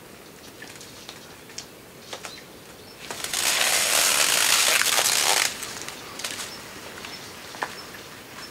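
A long white strip being pulled off a roll and across the ground, making a loud rustling hiss for about two seconds, starting about three seconds in. Faint scattered clicks come before and after it.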